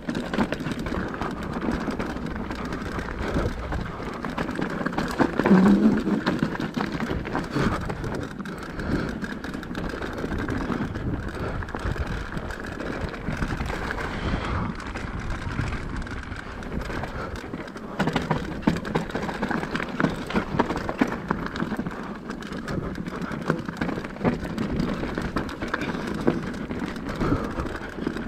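Mountain bike riding down a rough downhill trail: a steady rush of tyres over dirt and rock, with constant rattling and knocking from the bike over bumps.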